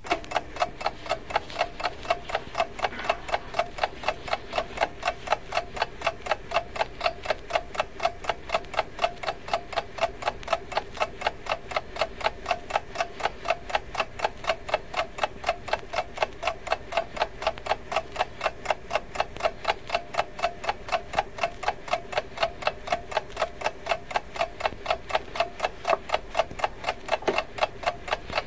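Steady, even mechanical ticking, about three ticks a second, each tick with a slight ring to it.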